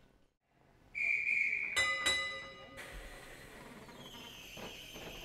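A short loud whistle blast, then a tram's bell struck twice and ringing out. A moment later a tram runs with a steady high motor whine over a low rumble.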